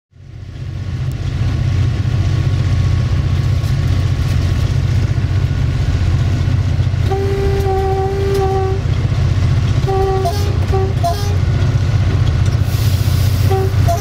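Diesel-electric locomotive running with a steady low drone, heard from its cab. About seven seconds in the horn sounds one long blast of about a second and a half, followed by several short toots.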